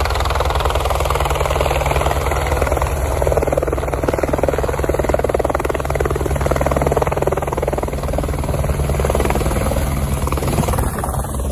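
Helicopter coming in to land close by, its rotor beating steadily under a loud rush of downwash and wind buffeting the microphone as blown snow sweeps past.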